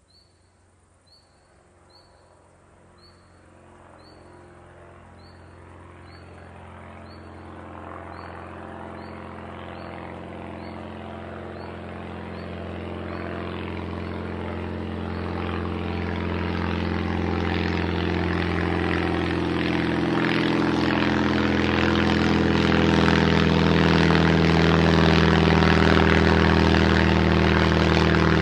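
Small propeller plane's engine drone growing steadily louder as it approaches. Crickets chirp at an even pulse in the first half before the engine covers them.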